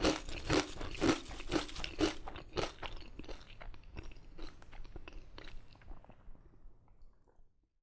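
Potato crisps being chewed close to the microphone: a regular run of crunches about two a second that grow softer and fade out near the end.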